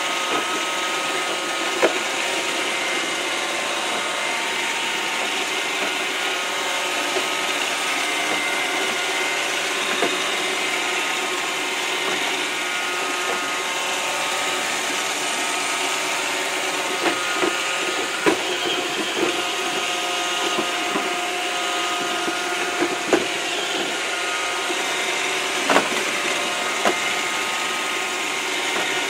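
iRobot Roomba robot vacuum running steadily, its motor and brushes whining, with occasional sharp knocks as it bumps against the walls of the trap.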